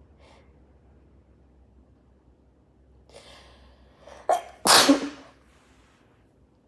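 A person sneezing: a quick in-breath about three seconds in, a short sharp catch, then one loud sneeze right after.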